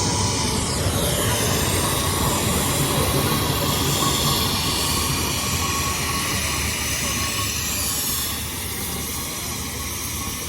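1920 Fowler BB1 steam ploughing engine on the move, running steadily with the noise of its machinery and exhaust. The sound eases slightly near the end.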